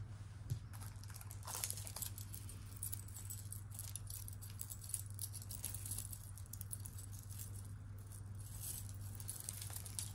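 Costume jewelry (metal chains, bangles and beaded necklaces) clinking and rattling faintly in many small ticks as hands pick through and untangle a pile, over a steady low hum.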